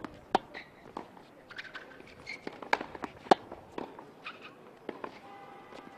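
Tennis rally on a hard court: a series of sharp pops from ball on racket strings and ball bounces, at irregular spacing, with the loudest hit about three seconds in. A steady tone with several pitches comes in near the end.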